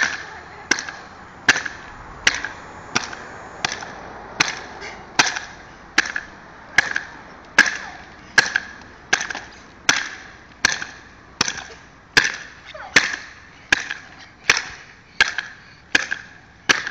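Skyrunner spring jumping stilts landing on asphalt bounce after bounce. Each landing is a sharp clack with a brief springy rattle, about one every three-quarters of a second in a steady rhythm.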